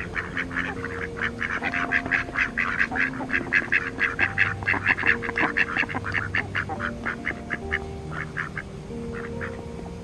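A flock of mallard ducks quacking in a rapid, overlapping chatter of many short calls a second. It is loudest in the middle and thins out to scattered quacks near the end.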